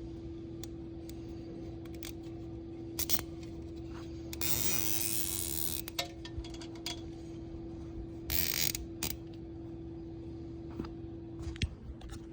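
A nylon zip tie being pulled tight through its ratchet in two zipping runs, a longer one about four seconds in and a short one near eight seconds, with scattered clicks of handling. A steady hum runs underneath.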